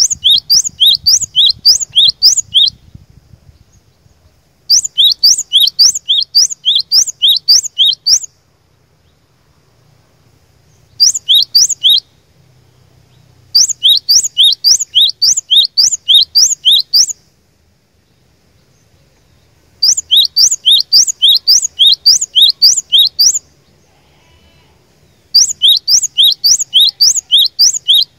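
Cinereous tit (gelatik batu) singing loudly: rapid high two-note phrases repeated about four times a second. They come in six bouts of one to four seconds each, with short pauses between.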